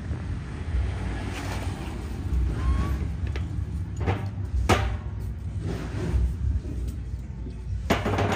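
Steady low background rumble, with a few sharp clicks about four seconds in and again near the end.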